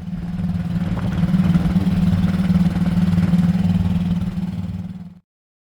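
An engine running steadily with a low hum, cut off abruptly near the end.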